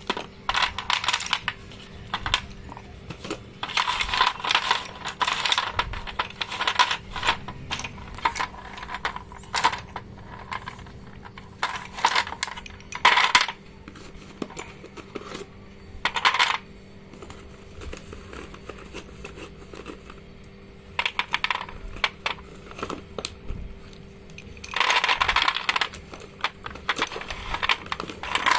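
Sticks of coloured chalk clattering and clinking against each other as handfuls are dropped and shuffled onto a tray. The clicks come in bursts, with a quieter stretch just past the middle.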